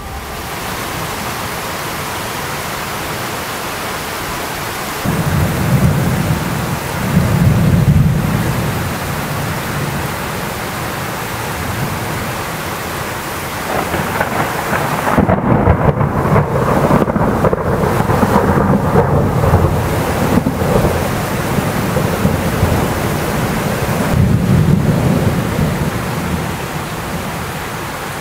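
Thunderstorm: rain falling steadily, with thunder rolling three times. A rumble comes about five seconds in, a longer, stronger crackling peal in the middle, and a shorter rumble near the end.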